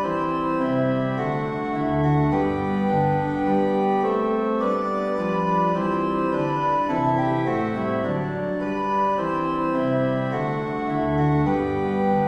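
Organ music: slow sustained chords, several notes held together and changing about once a second.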